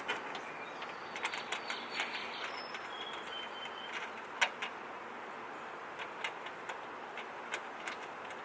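Scattered small clicks and taps of hardware being handled as a nut is fitted by hand onto the bolt of a quick-release bumper fastener, over a steady background hiss; the sharpest click comes about halfway through.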